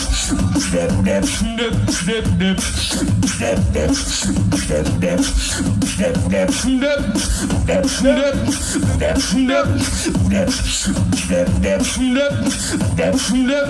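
Solo beatbox performance into a microphone: a driving beat of vocal kick, snare and hi-hat sounds over deep bass, with pitched vocal sounds woven in.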